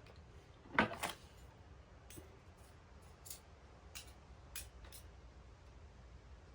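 A table knife scraping and tapping while spreading sticky butter on Welsh cakes: one louder scrape about a second in, then a few light clicks.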